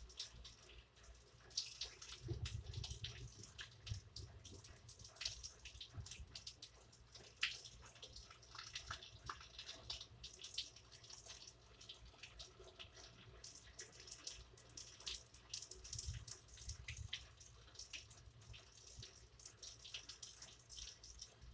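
Rain falling: faint, irregular patter of drops, with single drips ticking sharply here and there. Soft low rumbles come in a couple of seconds in and again about two-thirds of the way through.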